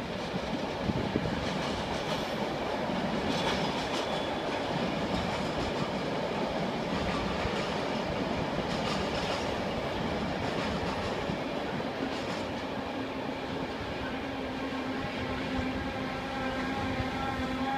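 Train running on the station tracks: a steady rumble of wheels on rail with a few scattered clicks. A steady whine with a higher tone above it comes in about two-thirds of the way through.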